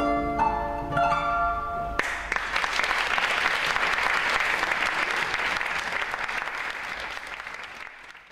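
Last plucked notes of a kanun (Turkish zither), then audience applause breaking out suddenly about two seconds in at the close of the piece, slowly fading toward the end.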